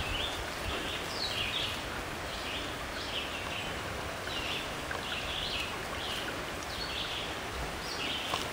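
Small woodland stream babbling over rocks, a steady rush of water. A bird calls over it with short high notes, about two a second.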